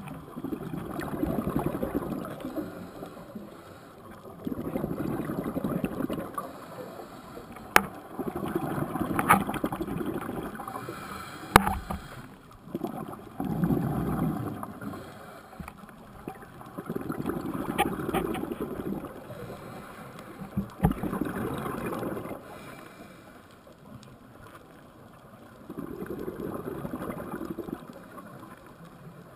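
Scuba diver's exhaled bubbles streaming from the regulator, heard underwater in bursts of about two seconds every four seconds or so, with quieter breathing-in gaps between. A few sharp clicks fall in between the bursts.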